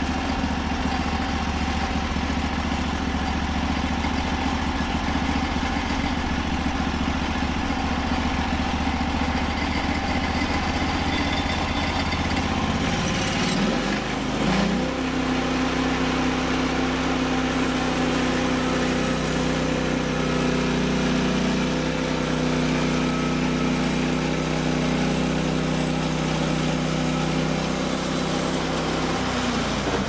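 Norwood HD36 portable band sawmill's engine idling steadily. About halfway through it speeds up with a short rising glide and runs at a steady higher speed while the saw head is pushed along the log, then drops back just before the end.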